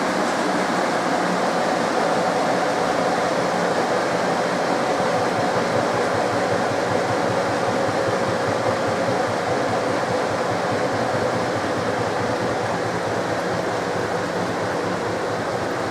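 SMEG 11 kg front-loading washing machine running through its rinse and spin: a steady whir of the drum and motor with a whine that sinks slightly in pitch.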